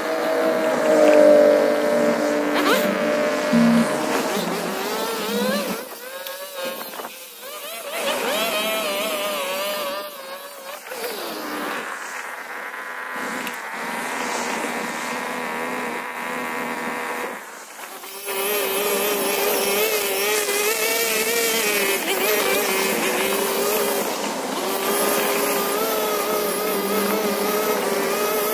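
Hyper Tough 25 cc two-stroke gas string trimmer running at cutting speed, revving up and easing off as it works. It drops back briefly twice, about six seconds in and again near the middle, then holds a steadier high speed for the rest.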